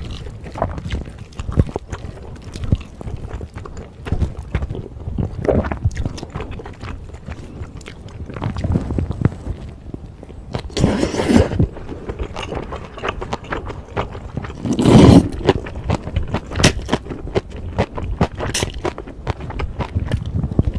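Close-miked chewing of beef bulgogi with glass noodles and bean sprouts, many small wet clicks and crunches, with two longer, louder slurps in the middle.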